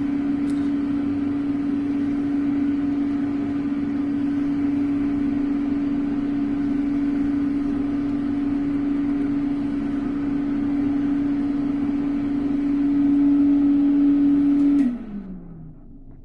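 Roache 2400 Turbo electric hand dryer running: a steady blast of air over a strong, even motor hum. About fifteen seconds in it switches off, and the hum drops in pitch as the motor winds down.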